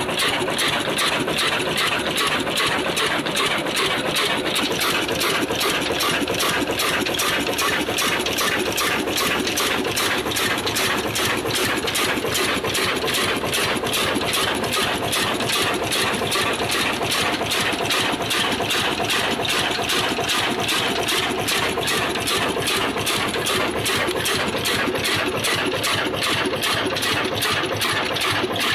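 Old black 22 HP diesel engine running steadily, its even, rapid beat unchanging throughout.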